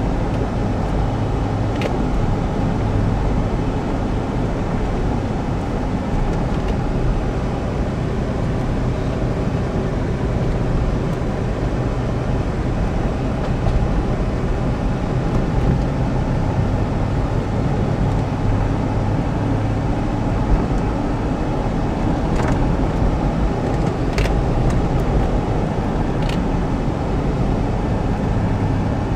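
Steady low rumble of a car's engine and tyres, heard from inside its cabin while driving.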